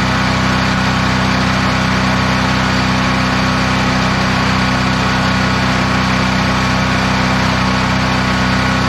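Small engine running at a steady speed, an even hum that does not change.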